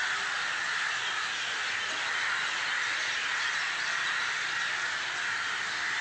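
Dense chorus of many birds calling at once, a steady din in which no single call stands out.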